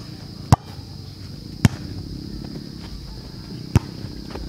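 A volleyball being struck by hands and arms in a rally: three sharp slaps, the first about half a second in, the next a second later, and the third about two seconds after that.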